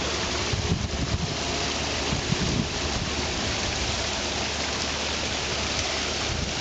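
Steady rushing hiss of water falling into a garden pond from a small waterfall.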